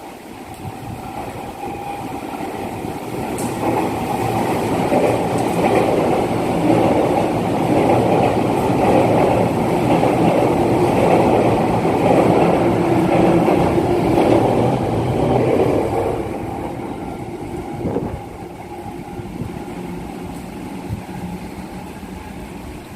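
Sotetsu 8000 series electric train running past on the station track. It grows louder over about five seconds, stays loud for about ten seconds, then fades away, with a short knock near the end.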